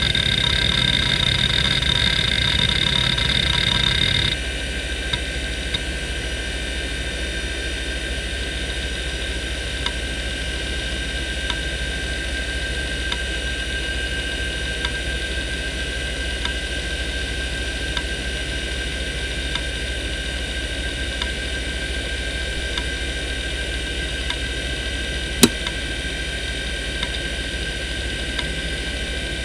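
Seagate ST3491A 427 MB IDE hard drive (1994) under a seek benchmark: the heads seek busily for about four seconds, then stop. After that the drive is left spinning at 3811 rpm with a steady whine, faint regular ticks about every second and a half, and one sharper click late on.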